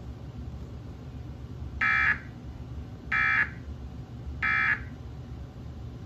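Emergency Alert System end-of-message signal from a TV speaker: three short, identical bursts of buzzing digital data tones, evenly spaced a little over a second apart, marking the end of the alert. A steady low hum runs underneath.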